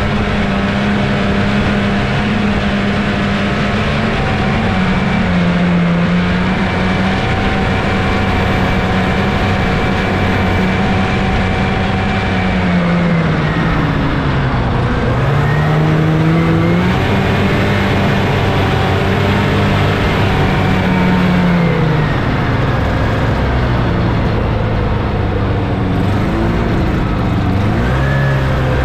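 1979 Scorpion Whip snowmobile's Cuyuna 440 two-stroke twin engine running under way. The engine note holds steady, then drops and climbs back about halfway through, and does so again near the end.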